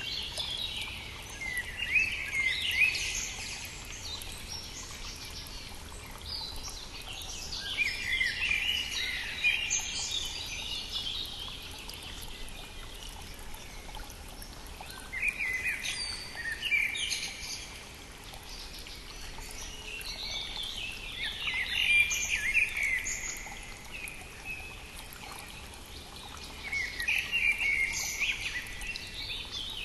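Songbirds singing in spring, phrases of two or three seconds each coming every several seconds, over the steady rush of a flowing brook.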